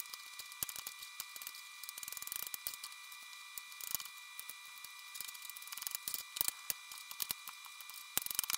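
Chef's knife chopping through chayote and then a carrot on a plastic cutting board: irregular light taps, several a second, with a quicker run near the end. A faint steady high hum sits underneath.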